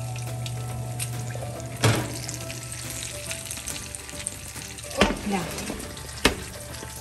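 Stuffed butternut squash halves, topped with melted mozzarella, sizzling on a hot baking tray just out from under the broiler. A sharp clunk of the metal tray comes about two seconds in, and two more near the end as the tray is pulled out and set down.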